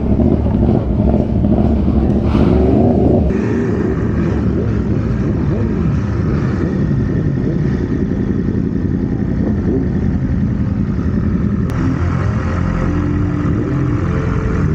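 Motorcycle engine running while riding, its pitch shifting up and down with the throttle. The sound changes abruptly about three seconds in.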